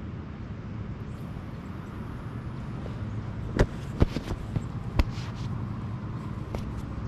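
Steady low background hum with several sharp knocks or clicks in the second half, the loudest about four seconds in.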